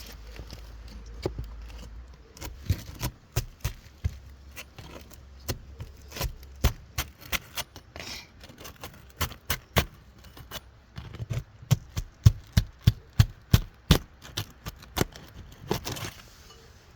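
Asphalt shingles being pried up with a hand tool to break their sealant strip: a run of sharp scraping clicks and cracks, coming faster and louder in the last several seconds.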